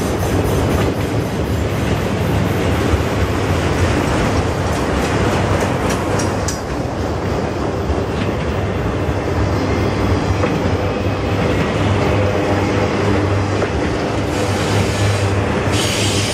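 Freight train of autorack cars rolling past at close range: steady rumble of steel wheels on rail, with rhythmic clicking from the wheels in the first half.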